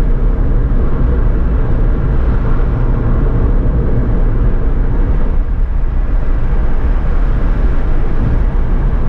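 Steady road noise inside a Suzuki Alto cruising on the open road: tyre roar and engine drone that hold even throughout, heaviest in the low end.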